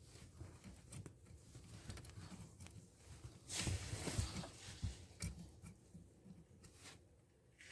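Faint small clicks and rustles of hands fitting a brake light switch and its plastic parts under a car's dashboard, with a louder scraping rustle about three and a half seconds in.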